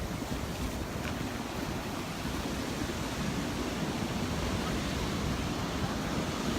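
Surf washing onto the beach, with wind buffeting the microphone as a steady rumble.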